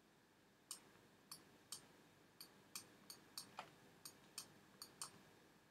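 Computer mouse clicking, about a dozen faint sharp clicks at an uneven pace starting just under a second in, each click a dab of the spot healing brush while retouching.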